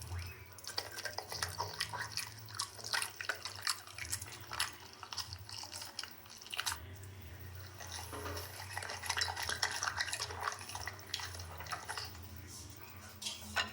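A dog eating noisily: rapid, irregular wet smacking and clicking mouth sounds.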